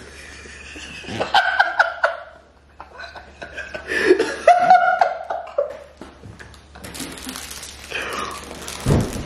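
Two people laughing hard, in short broken bursts, with a loud thump just before the end.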